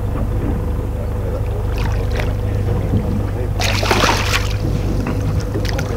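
A landing net scooping a hooked cod out of the sea: a few small splashes, then one loud splash of churned water about four seconds in, over the steady low hum of the boat's engine.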